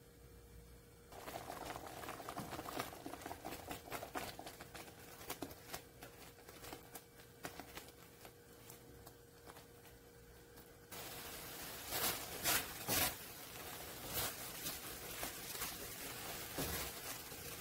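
Silicone spatula stirring and scraping a thickening semolina, sugar-syrup and milk mixture in a nonstick pan, with irregular soft clicks and pops as it cooks down. The sound steps up louder about a second in and again past the middle, with a few sharper knocks soon after.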